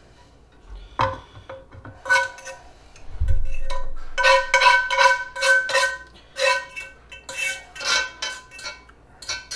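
A utensil scraping and knocking gravy out of a tilted cast iron pan into a mug: a run of ringing clinks, quickest and loudest about four to six seconds in, with one dull thump a little after three seconds.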